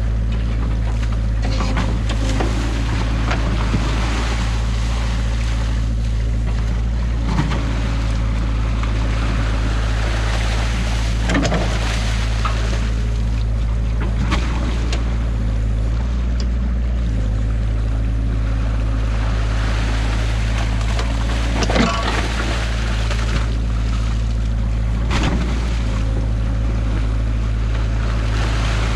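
New Holland excavator's diesel engine running steadily while its bucket works in a stream at a breached beaver dam, with water rushing and splashing through the gap. A few short knocks from the bucket and its linkage come through, the loudest about two-thirds of the way in.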